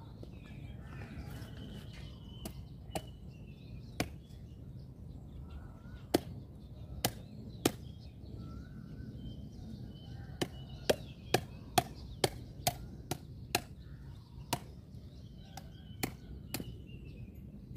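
A heavy knife chopping through large striped catfish on a wooden chopping block: sharp separate chops, scattered at first, then a quick run of about eight at roughly two to three a second, then a few more near the end.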